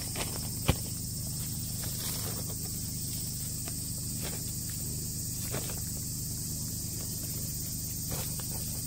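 Gloved hands handling a shade net and plastic sheeting at the base of a vinyl greenhouse: faint scattered rustles and scrapes over a steady low hum and high hiss, with one sharp tap under a second in.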